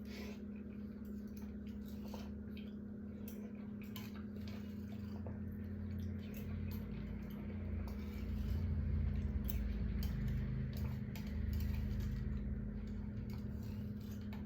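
Sparse light clicks and taps of eating with dishes and utensils, over a steady low hum; a low rumble swells in the middle and fades again.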